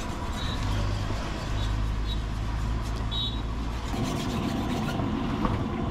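A steady low engine rumble, like a motor vehicle running close by, from about half a second in until about four seconds, over general outdoor street noise with a few faint short high chirps.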